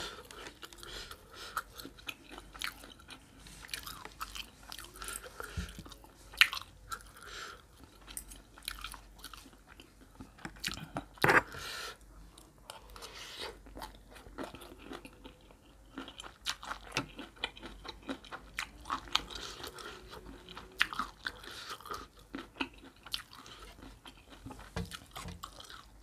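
Close-miked chewing and crunching of a spicy horseshoe crab egg salad with shredded raw vegetables, many short crisp crunches, with metal fork and spoon clicking against a metal tray. One sharp louder click comes about eleven seconds in.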